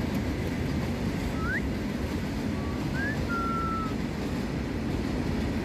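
A steady low rumbling noise with a few short, thin whistle-like notes over it: a rising one about one and a half seconds in, and a brief upward note near three seconds followed by a level note held for under a second.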